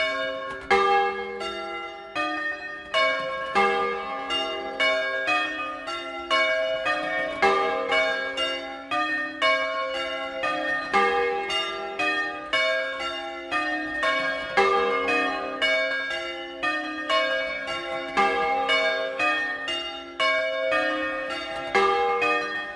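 A portable frame of six bronze church bells, cast by Francesco De Poli in 1994 and tuned to a major sixth (A-flat to F), rung "a doppio" in the Bolognese manner: the bells swing and strike in a steady, overlapping sequence, a stroke about every half second, each note ringing on into the next.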